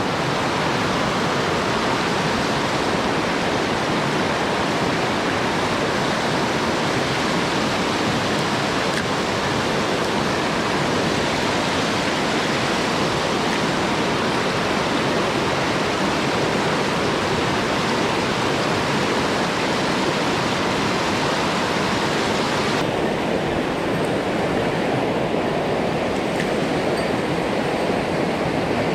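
Rushing water of a rocky mountain stream, a steady full rush of noise. About twenty-three seconds in it turns a little duller, with less hiss.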